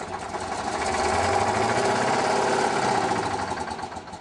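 Big Bud 747 tractor's 16-cylinder Detroit Diesel two-stroke engine revving up, holding high revs for about two seconds, then dropping off near the end.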